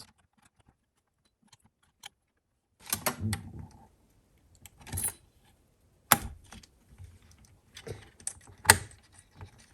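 A RAM stick being worked into a motherboard memory slot: scattered sharp plastic clicks and knocks. The clicks start about three seconds in, and the sharpest come about six and nine seconds in.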